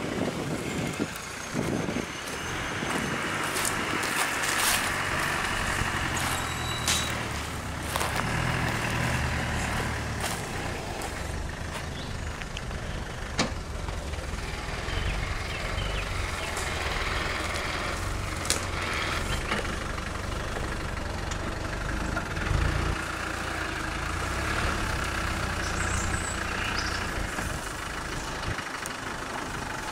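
Land Rover Defender engine running at low revs as the 4x4 crawls slowly over rough off-road ground, with a few sharp knocks and clicks.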